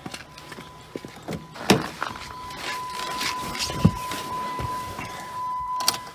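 Footsteps on a frozen driveway, then a Jeep Patriot's driver door opening with a sharp click about two seconds in and a thump a couple of seconds later as someone climbs into the seat. A faint steady high tone sounds from the door opening on.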